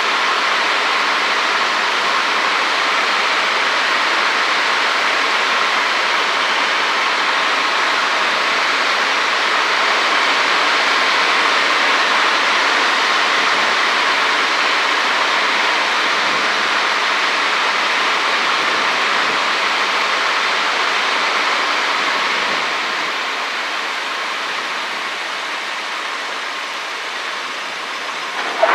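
Steady cabin noise of a Cessna 152 on final approach: the four-cylinder Lycoming engine and propeller with airflow, as a steady hiss-like rumble that eases down about three-quarters of the way through as power comes back. A brief sharp thump comes at the very end.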